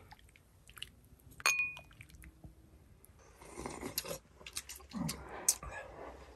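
A metal ladle clinks once against a porcelain bowl with a short ring as hot broth is ladled out. After that, people sip and slurp the broth from small bowls.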